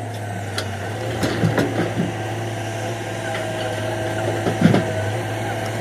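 Excavator's diesel engine running steadily, with a few short knocks, about a second and a half in and again near the end.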